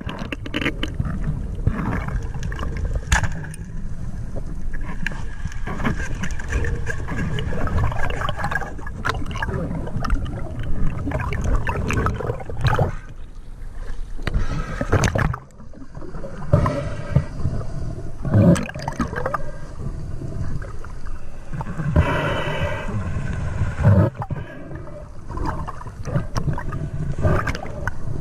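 Water sloshing and gurgling right at the microphone, with scattered knocks and bumps.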